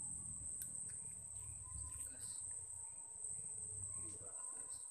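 Insects singing in one steady, high-pitched drone, over a faint low rumble.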